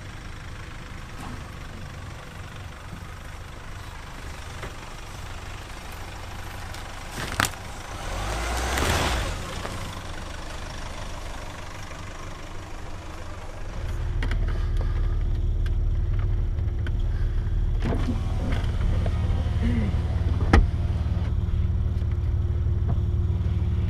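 Toyota LandCruiser's V8 turbo-diesel engine running as the 4x4 works slowly along a rutted forest track. There is a swell of noise about eight seconds in. From about fourteen seconds in the engine drone is louder and deeper, with a couple of sharp knocks.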